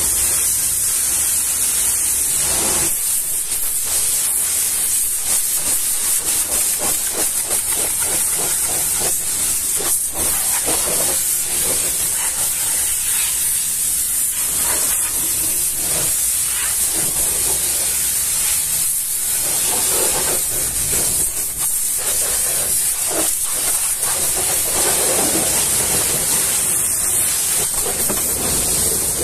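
High-pressure washer jet spraying a muddy truck wheel and tyre: a steady hiss of water, with the splashing swelling and fading as the jet moves over the rim and tread.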